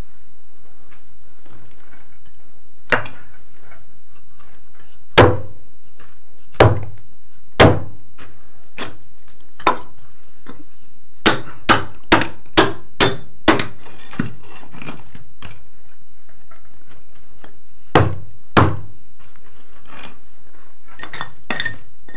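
A hand-held metal bar striking and jabbing broken concrete and tile rubble, giving sharp knocks and clinks. The strikes are spaced a second or two apart, with a quick run of about six in two seconds past the middle and two more later.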